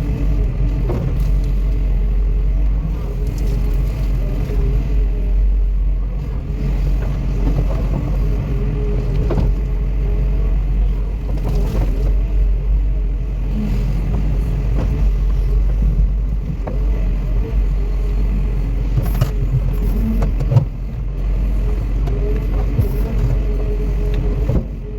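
An engine running steadily with a low rumble, with a few short knocks and one sharp knock about twenty seconds in.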